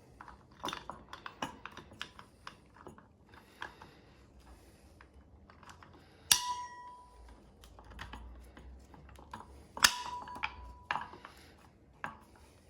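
Metal brake parts and tools clicking and tapping during hands-on work on a motorcycle drum brake, with two sharp metallic clanks, about six and ten seconds in, that each ring briefly.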